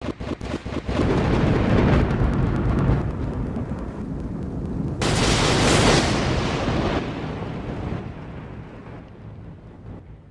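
Thunderstorm sound effects for a logo intro: a rapid crackle at the start, then heavy rumbling thunder, and a sudden loud burst with a hiss about five seconds in that slowly dies away.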